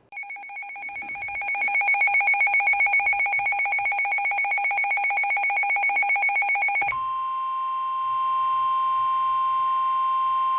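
Weather radio alert alarm: a rapid pulsing electronic beep that swells over the first couple of seconds. About seven seconds in it switches to the steady 1050 Hz NOAA Weather Radio warning alarm tone, which signals that a warning broadcast is about to follow.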